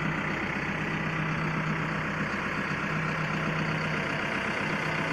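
Diesel engine of a Caterpillar heavy machine running steadily, heard from inside its cab, with a constant low hum.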